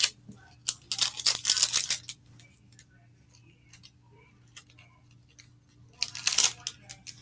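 Plastic wrapping rustling and crinkling as it is handled, in two bursts: about a second in and again near the end. A faint steady low hum underneath.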